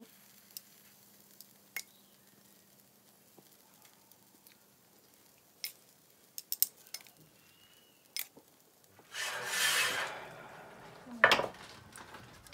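A metal spoon clinking now and then against a ceramic bowl and a cast-iron skillet as filling is spooned onto bread, over a faint sizzle. Near the end comes a louder rushing noise, then one sharp metal clank, the loudest sound.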